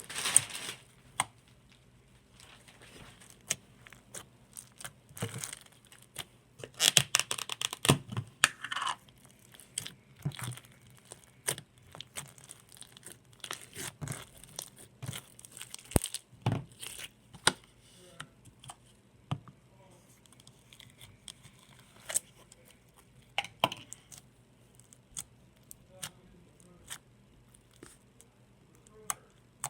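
Slime being stretched, squeezed and poked by hand, giving scattered sticky clicks and pops, with a denser patch of crackling about seven to nine seconds in.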